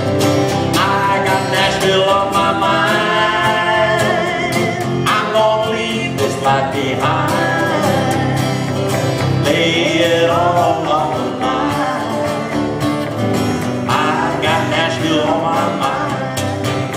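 A live country song: an acoustic guitar and a red Gretsch electric guitar playing a steady tune, with a voice singing over them.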